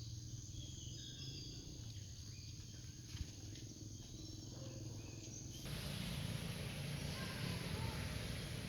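Outdoor ambience: faint short chirps over a steady low rumble. A louder, steady hiss starts abruptly about five and a half seconds in.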